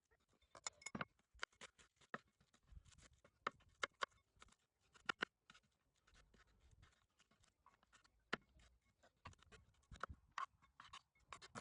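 Faint, irregular clicks and light taps, with a few sharper knocks standing out, as of small objects being handled.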